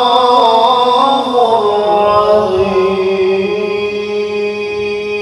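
A man chanting the closing words 'Sadaqallahul 'azim' of a Qur'an recitation in tilawah style. His pitch wavers through ornaments for about two seconds, then settles into one long held note that slowly fades.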